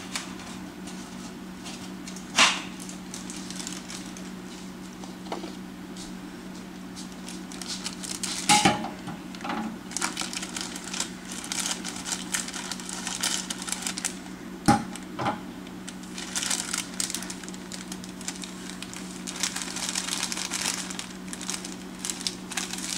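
Kitchen work sounds: scattered crinkling and light clatter with about four sharp knocks, over a steady low hum.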